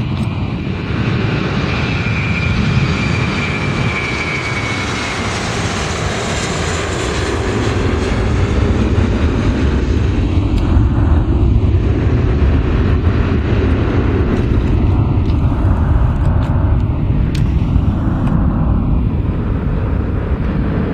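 Airbus A321-231's twin IAE V2500 turbofans at takeoff thrust as the airliner rolls, lifts off and climbs away. Loud, steady jet engine noise, with a high whine for the first four seconds or so.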